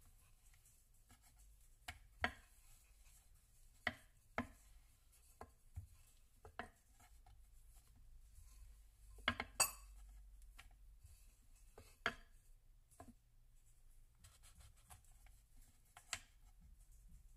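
Wooden rolling pin knocking and clacking against a wooden board while dough is rolled out: about a dozen short, sharp knocks at irregular intervals, two close together about halfway through.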